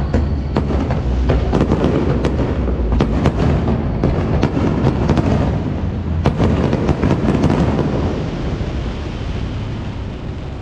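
Fireworks display: many sharp shell bursts and crackles over a continuous low rumble, coming in two dense clusters, then thinning out and fading near the end.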